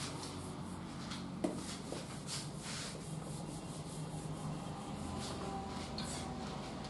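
Scratchy pen strokes drawing on a writing surface, short and irregular, with a small click about one and a half seconds in.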